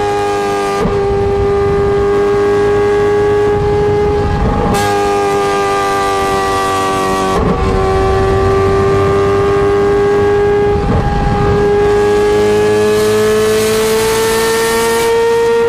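Ferrari 430 Scuderia's flat-plane V8 through a straight-pipe exhaust, held at high revs with a steady, near-constant note that sags slightly and climbs again near the end. The note is broken by a few brief cracks.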